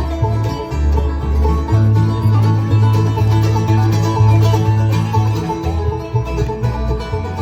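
A bluegrass band playing live, with plucked strings over a steady bass line.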